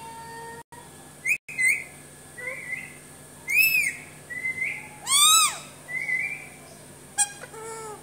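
Alexandrine parakeet whistling: a string of short, clear whistles that rise and fall in pitch, the loudest about three and a half and five seconds in.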